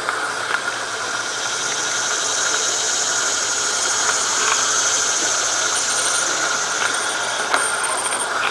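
LGB model streetcar running along garden-railway track: a steady high-pitched squeal and hiss from the model's motor and wheels, swelling in the middle, with a few light clicks.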